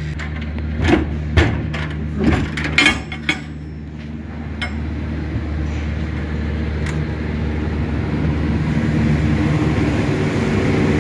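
Biogas engine-generator of a Bio Electric manure digester running steadily with a low, even hum, getting louder as the container housing it is entered. A few sharp knocks in the first few seconds.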